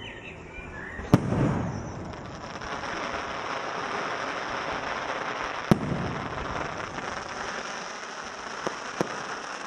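Fireworks shells bursting overhead: a sharp bang about a second in, followed by a low rumble, then a long spell of dense crackling. A second bang comes partway through, and two smaller pops come near the end.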